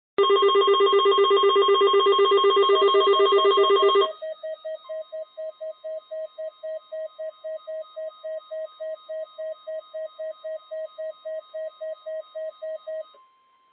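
Weather alert radio sounding its alarm for a NOAA Weather Radio required weekly test. A loud, fast electronic warble for about four seconds drops to quieter beeps about four times a second, with a faint steady tone underneath, and cuts off about a second before the end.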